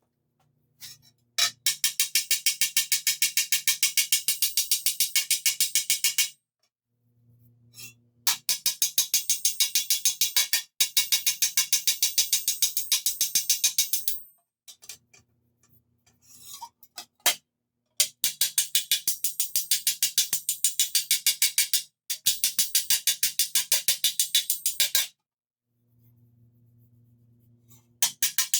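Rapid hammer blows on steel armour plate held over an anvil, struck at several blows a second in runs of a few seconds with short pauses, each blow ringing brightly: dents being pushed out from the inside with a curved-face hammer.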